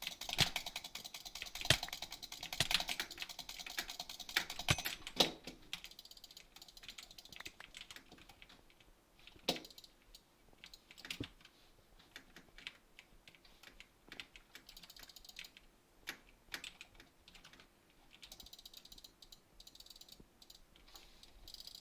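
Many small, sharp clicks in quick runs, like keys being typed: dense for the first few seconds, scattered single clicks in the middle, and a quicker run again near the end.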